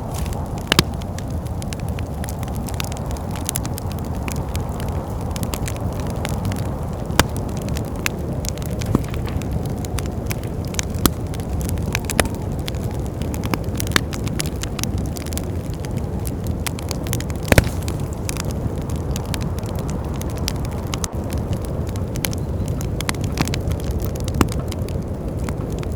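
Wood fire in a fireplace crackling, with sharp pops scattered irregularly every second or two. Under it runs a steady low rush of wind.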